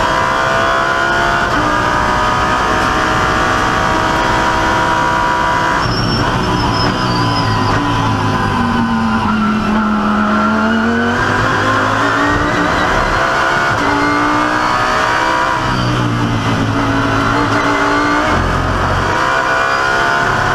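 Audi R8 LMS GT3 EVO race car's V10 engine heard from inside the cockpit, climbing through the gears in quick steps, then dropping in pitch under braking to its lowest through a corner about ten seconds in, and pulling hard through the gears again.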